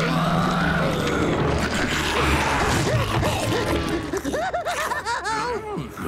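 Cartoon music and sound effects: a heavy low rumble with crashing noise, then, in the second half, a string of short squealing cries that rise and fall.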